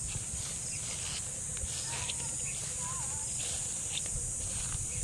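Steady high-pitched chorus of insects, like crickets, with two faint short wavering whistles about two and three seconds in, over a low rumble.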